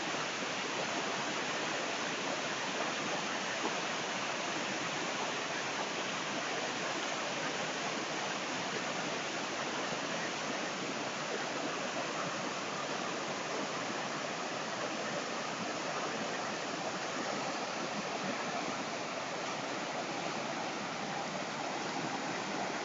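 Swollen, muddy river in flood rushing over rocks and debris: a steady, even rush of water that holds at the same level throughout.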